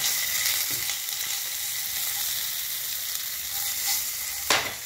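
Garlic cloves with dried red and whole green chillies sizzling steadily in hot mustard oil in a frying pan, stirred with a spatula. A brief sharp knock near the end.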